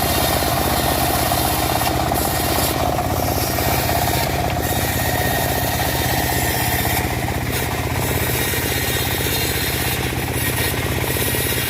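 Engine of a homemade bandsaw mill running steadily with a fast, even chug.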